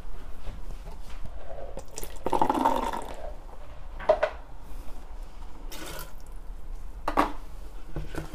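Cooking water from boiled black chickpeas poured into an aluminium pressure cooker for about a second, about two seconds in. A few sharp clacks of a plastic spatula against the pot follow.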